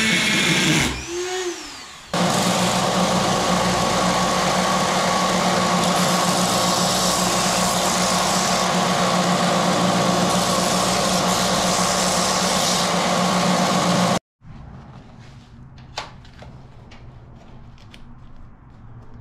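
A Dremel rotary tool with a cutoff wheel whines as it cuts metal angle stock, its pitch swooping, and winds down within the first two seconds. Then a bench belt and disc sander runs steadily with a low motor hum for about twelve seconds while a small metal piece is ground on it, and cuts off suddenly. A few light metallic clicks follow from hand work.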